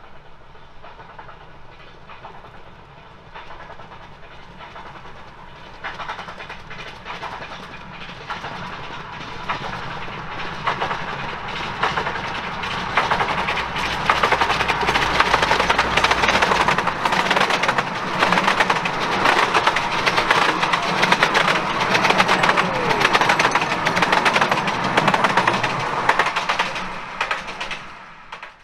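Miniature steam locomotive modelled on a New York Central Niagara hauling loaded passenger cars, approaching and running past close by. A rapid clatter of wheels over the rail joints grows louder and stays loud while the carriages pass, then drops away near the end.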